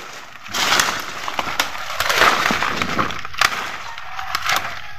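Dry leaf litter and twigs crackling and snapping as a hand clears debris from the mouth of a land crab burrow, loudest in the first half with scattered sharp snaps after.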